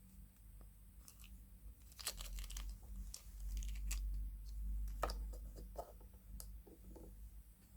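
A surprise egg being unwrapped and opened by hand: wrapper crinkling and tearing, with scattered small clicks and crackles, busiest in the middle.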